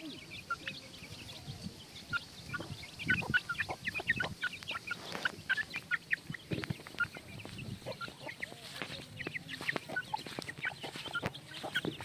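Flock of two-month-old Aseel chicks with a hen, peeping and clucking as they peck and forage: many short calls scattered throughout.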